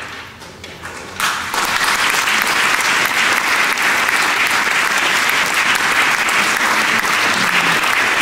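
Audience applauding, starting suddenly about a second in and then holding steady.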